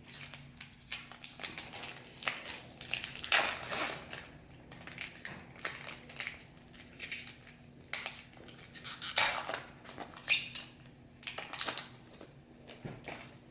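Foil wrapper of a baseball card pack crinkling and tearing as it is opened, with the cards rustling in hand. The crackles come in irregular bursts, loudest about three seconds in and again near nine seconds.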